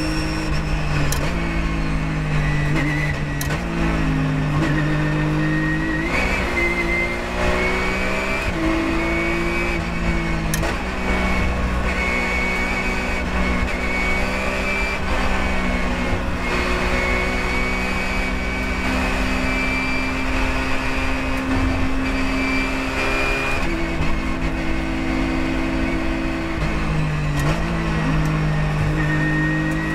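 Porsche 997.1 GT3 Cup race car's flat-six engine heard from inside the cockpit under racing load. Its pitch steps up and down several times as it shifts gears and brakes for corners, with a long steady stretch in the middle.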